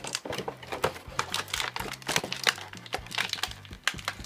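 Clear plastic toy packaging crinkling and crackling as hands handle and pull at it, in many irregular crackles.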